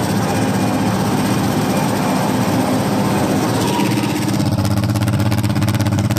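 International Harvester 706 tractor engine running steadily, running again after its sludge-clogged fuel tank was cleaned out. The fast beat of its firing becomes more distinct in the last couple of seconds.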